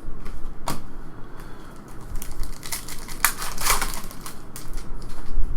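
Basketball trading cards being handled and flipped, cards sliding and snapping against one another in a string of papery swishes and light clicks.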